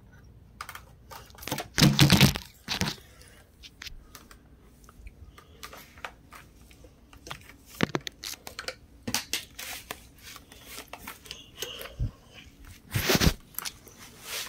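Close handling noise of a phone being moved and rubbed against a football helmet's facemask: scattered clicks and scrapes, with louder crunching bursts about two seconds in and near the end.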